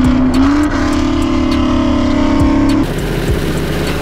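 High-performance car engines at full throttle during a roll race; the engine note rises a little, holds a steady high pitch, and falls away about three seconds in as the throttle lifts.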